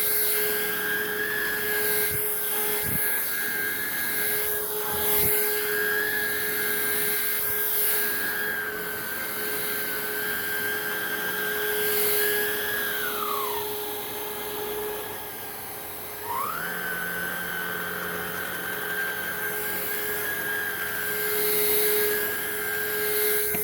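Hoover React cordless upright vacuum running on carpet with a steady motor whine. About halfway through the whine drops in pitch and the machine goes quieter for about three seconds, then it climbs back up: the automatic FloorSense floor detection switching power modes, which the owner says gets confused on this carpet.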